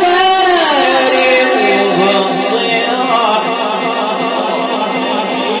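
A young man's voice reciting the Quran in the melodic tajweed style, holding long, ornamented notes through a microphone and loudspeakers. The phrase ends near the end.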